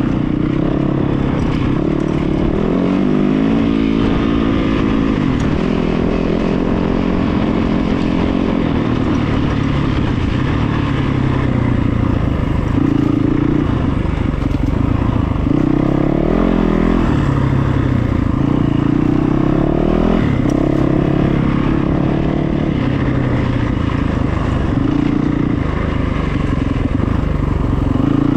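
A vehicle engine running continuously, its pitch rising and falling again and again as the revs change.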